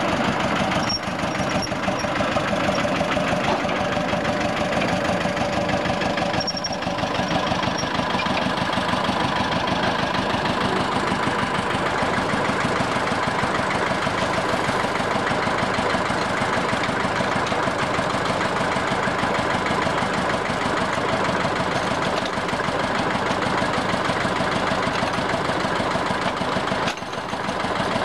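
Engine of a small narrow-gauge internal-combustion locomotive running steadily with a fast, even beat.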